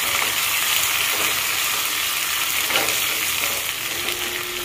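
Sambar tempering sizzling in hot sesame oil in a small pan: shallots, spices and freshly added curry leaves frying with a steady hiss while a steel ladle stirs them.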